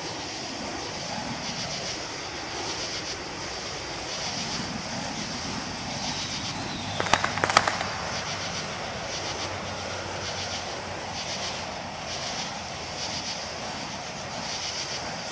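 Burning fire hoop wicks whooshing as the hoop spins, over a steady rushing background, with two or three sharp cracks about seven seconds in.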